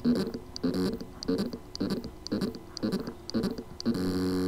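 Seagate Barracuda hard drive with loose spindle-motor contacts on its circuit board: the spindle motor pulses and struggles, a low buzzing knock about twice a second, then a steady pitched hum from about four seconds in. It is the sound of a motor that can spin but cannot reach full speed because of the loose contacts.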